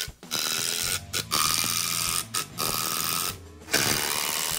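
Cordless impact driver driving long screws into wooden boards, rattling in four short bursts of under a second each.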